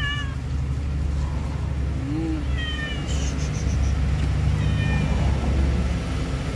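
A wet long-haired cat meowing several times, in short calls that fall or arch in pitch, while being held for a bath it dislikes. A steady low rumble runs underneath.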